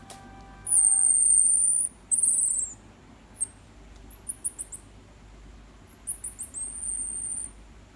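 Baby marmoset calling in high, thin whistles: long drawn-out phee-like whistles and quick runs of short falling chirps.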